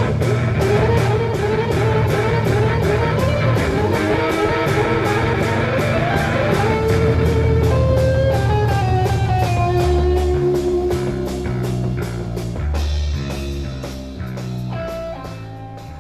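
Psychedelic rock instrumental with electric guitar and bass over a steady beat, fading down over the last few seconds.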